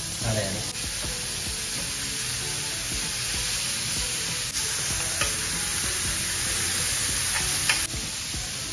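Steady sizzling of hot food in a stone bibimbap bowl, with a few clinks of a metal spoon against the bowl.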